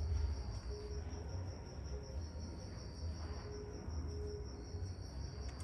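Crickets chirping steadily in a high, continuous trill, over a low rumble.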